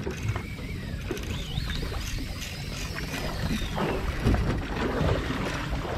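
Wind buffeting the microphone and water slapping against a boat at sea, a steady rough low rumble, with a faint high wavering tone through the first few seconds.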